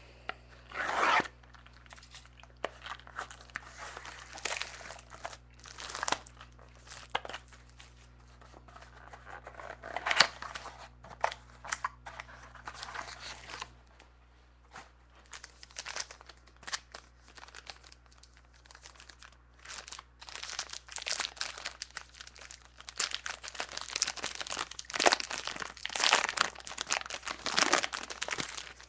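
Packaging of a trading-card mini box being torn open and crinkled by hand: irregular tearing and rustling, busiest and loudest in the last third.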